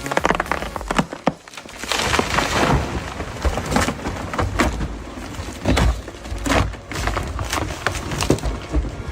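Wood cracking and splintering, with a string of sharp cracks and knocks over a low rumble.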